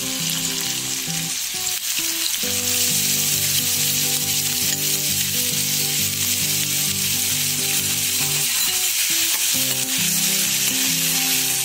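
Chopped onion sizzling as it fries in hot oil in a metal kadai, a steady hiss, while a metal spatula stirs it.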